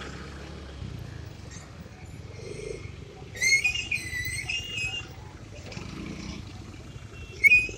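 Motorcycle riding in slow traffic: a steady low engine and road rumble, with a high, wavering squeal of unclear source from about three and a half seconds in, lasting over a second, and a short high squeak near the end.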